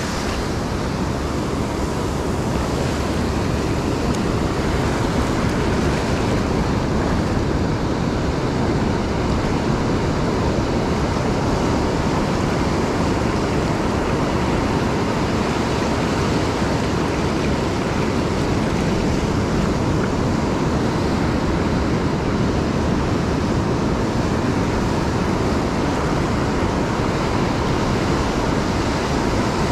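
Steady wash of ocean surf on a beach, mixed with wind buffeting the microphone.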